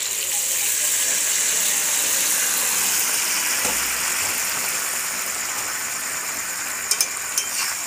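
Hot water poured into a steel kadai of fried, spiced chicken and potatoes, hissing and sizzling as it hits the hot pan, the hiss easing off over several seconds. A few light clicks near the end.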